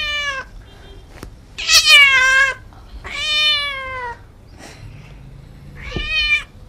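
Domestic cat meowing repeatedly: four long meows, each falling in pitch, the second one the loudest.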